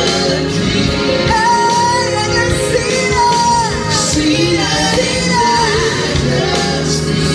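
Worship team of several singers singing a church worship song into microphones, with instrumental accompaniment.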